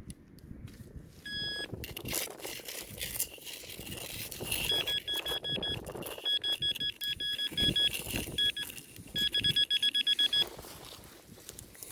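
Metal detecting pinpointer beeping in short pulses as it is probed over a target in the sand. There is one beep about a second in, then runs of rapid beeps from about the middle, quickest just before the end.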